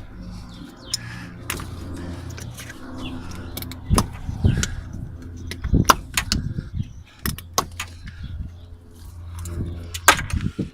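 Metal clinks and knocks of hand tools and engine parts being handled, a dozen or so sharp strikes with the loudest about 4, 6 and 10 seconds in, over a steady low hum.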